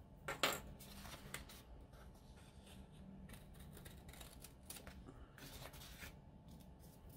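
Small scissors snipping through a paper sticker sheet: a series of soft, short cuts spread across a few seconds.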